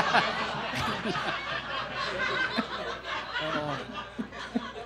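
Comedy club audience laughing and chuckling at a punchline, loudest at the start and dying down toward the end.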